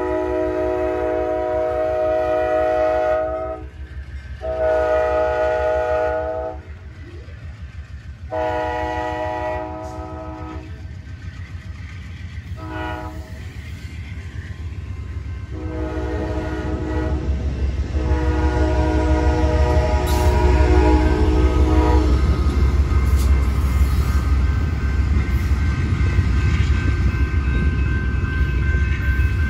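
Amtrak #821's locomotive horn sounding a multi-note chord in a series of blasts, the pattern blown for a grade crossing; the last blast is held about four seconds. Then the train passes close by, with a loud low rumble and clickety-clack of wheels over the rail joints.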